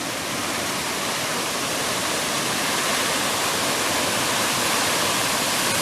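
Steady rushing of Bowers Falls, a waterfall running high, heard close up at its base.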